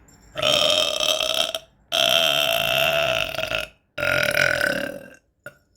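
A woman burping three times in a row, each burp long and drawn out at a fairly steady pitch, the middle one the longest.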